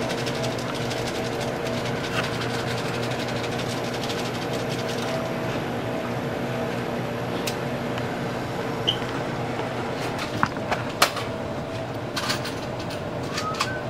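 Steady electrical hum of convenience-store appliances. A few sharp clicks and knocks come near the end as items are handled at the checkout counter.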